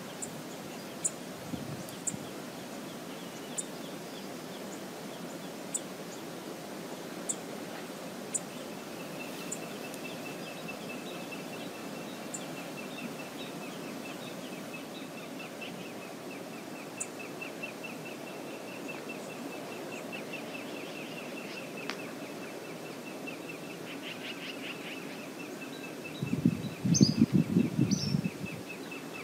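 Steady outdoor river ambience with scattered short, high bird chirps, and a rapid, even ticking trill that starts about a third of the way in and runs on. Near the end a louder low rumbling lasts about two seconds, with a few bird calls over it.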